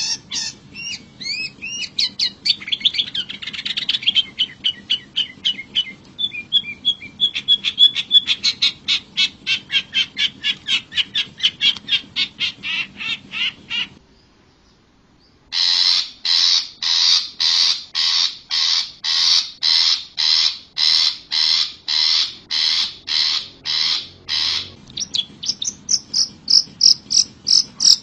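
Long-tailed shrike (cendet) calling. It gives a fast run of sharp, high notes, then after a short break about halfway a series of loud, harsh, grating calls about two a second. Quicker chirping resumes near the end.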